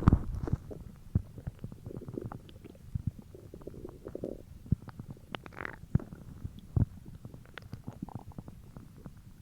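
Human stomach growling and gurgling: irregular low gurgles with many short sharp pops and clicks, loudest right at the start.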